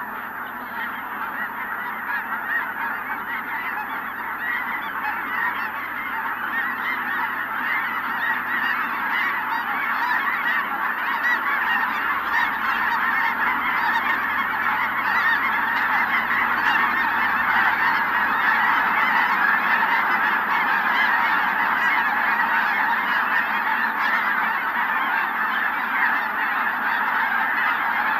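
A large flock of Ross's geese calling together, a dense, unbroken chorus of honking that slowly grows louder.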